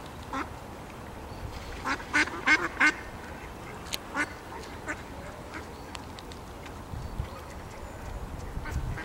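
Mallards quacking: a single quack, then a quick run of loud quacks about two seconds in, followed by a few scattered single quacks.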